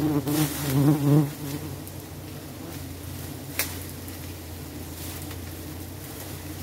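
Giant honey bees buzzing, loud and close for the first second or so, then a fainter steady hum. A single sharp click comes about three and a half seconds in.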